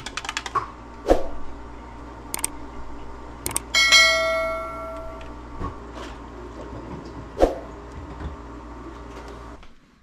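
Clicks and knocks of utensils and feeding bottles being handled while lamb milk bottles are mixed. Quick clicking at the start, and one ringing metallic clink about four seconds in that fades over a second.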